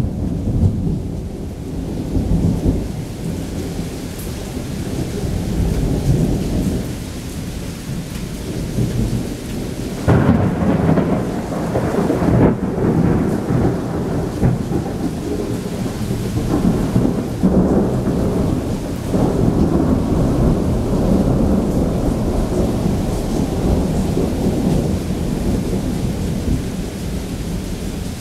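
Thunder rumbling almost without a break over steady heavy rain, with a sharper, louder crack of thunder about ten seconds in.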